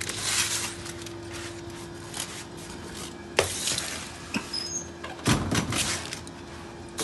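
Foil-lined metal sheet pan being handled and set into a commercial oven: a sharp click about three and a half seconds in, then a louder scraping clatter a little after five seconds. A steady hum runs underneath.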